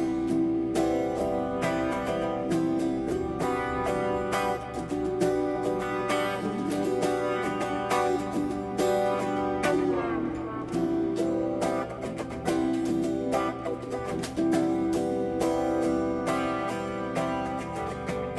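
Music led by a plucked guitar, with notes picked and strummed in a steady stream.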